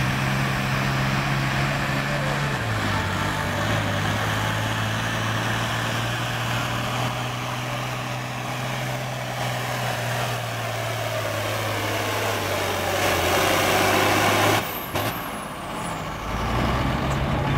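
Minneapolis-Moline hot stock pulling tractor's diesel engine at full throttle under load while pulling the sled, its pitch stepping down a few seconds in as the engine lugs down against the weight. Near the end the sound drops abruptly to a quieter, lower engine sound.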